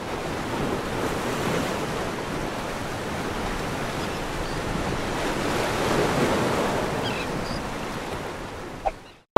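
Ocean surf washing onto a beach, a steady rush of water that swells twice, then fades out and cuts off just before the end.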